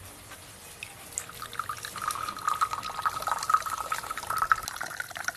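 Liquid being poured in a steady stream, filling a container, beginning about a second in.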